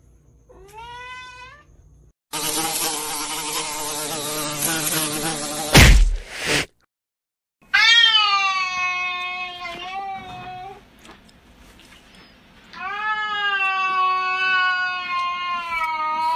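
A house cat yowling: two long wavering cries, each a few seconds long and falling in pitch. Before them come a short rising meow and about three seconds of harsh buzzing that ends in a sharp thump.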